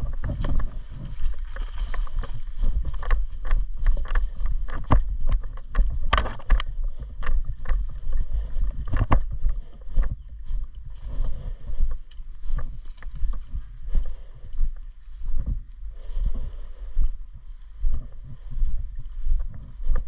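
Footsteps and gear rustling of an airsoft player on the move, picked up close on a camera he is carrying, with a low rumble, a rhythmic rise and fall about once a second, and scattered sharp clicks and knocks, the loudest about six seconds in.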